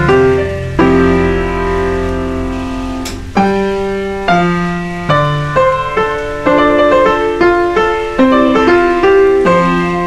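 Background piano music: a chord held for the first few seconds, then a slow melody of single notes that each die away.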